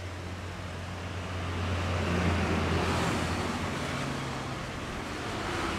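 Road traffic with heavy diesel vehicles (buses and trucks) and motorcycles: a low, steady engine drone over tyre and road noise, swelling louder about two seconds in as a vehicle passes close, then easing off.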